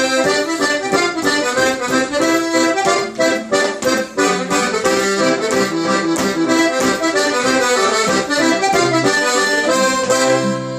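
Two-row button accordion playing a quick traditional tune, its melody moving in rapid runs of notes, with an acoustic guitar strummed along as accompaniment.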